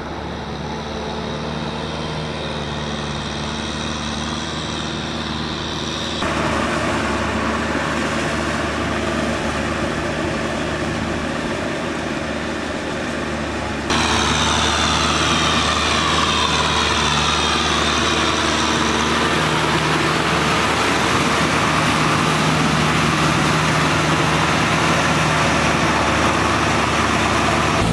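Kubota tractor's diesel engine running steadily as it tills a flooded rice paddy. Its sound steps louder about six seconds in and again about fourteen seconds in.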